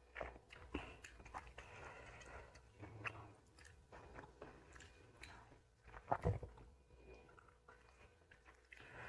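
A person chewing and eating close to the microphone: wet mouth sounds with scattered short crunches and clicks, and one louder bite about six seconds in.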